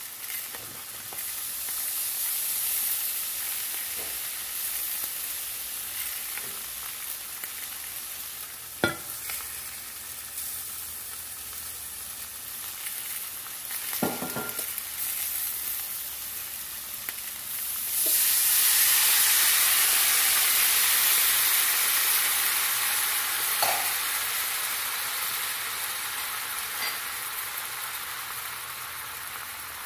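Food sizzling in a hot cast-iron skillet, broken by two sharp knocks. About two-thirds of the way through, liquid goes into the hot pan and the sizzle jumps to a much louder hiss, which slowly eases off.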